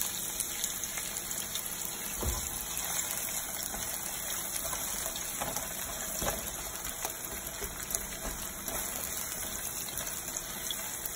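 Sliced onions sizzling in hot oil in a nonstick frying pan as they start to fry for browning, a steady high hiss. A silicone spatula stirring them gives a few light scrapes and taps.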